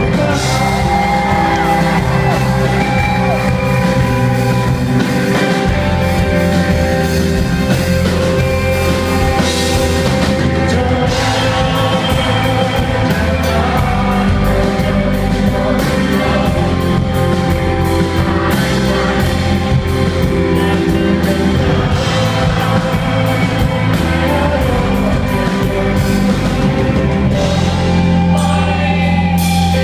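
Live rock band playing with a sung vocal, heard through the reverberant sound of a large hall, with occasional shouts from the crowd.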